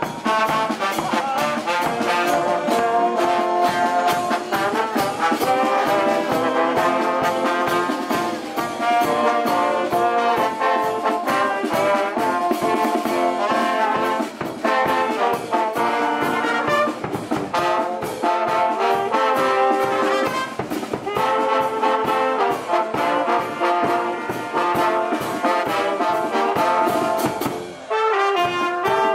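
Street brass band of saxophones, trombones, trumpets and a sousaphone playing a lively tune, with drums keeping a steady beat. The music dips briefly near the end.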